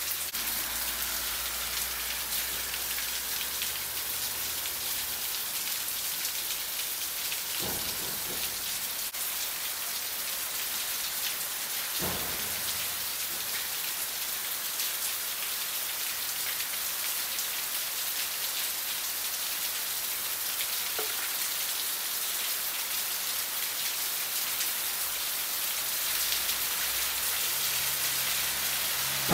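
Heavy rain pouring onto a paved road and brick sidewalk: a dense, even hiss of drops on wet pavement that holds steady throughout.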